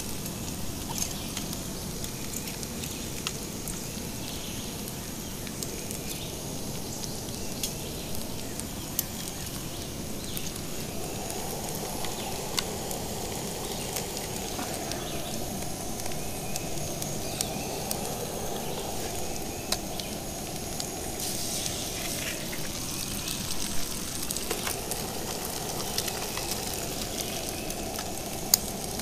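Shredded hash browns frying in a pan on an MSR WhisperLite camp stove: a steady sizzle with many small pops and crackles. There are a couple of sharper knocks near the end.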